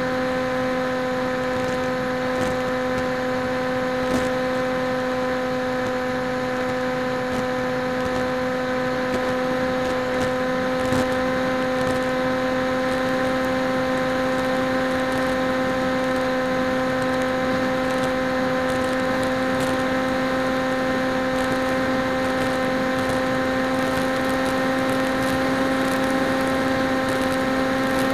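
Electric motor and propeller of a PopWing flying wing in flight, recorded by its onboard camera: a steady whine held at one pitch over rushing air noise. The pitch creeps up slightly near the end.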